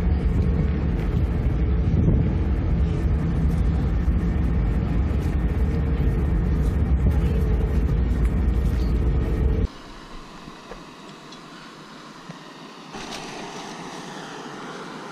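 Vehicle ferry's engine running steadily, with wind on the microphone. About ten seconds in it cuts off abruptly to a much quieter, even hiss.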